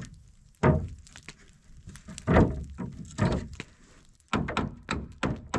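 A run of about six dull knocks and thunks at uneven intervals, from hand work on a stuck fastener.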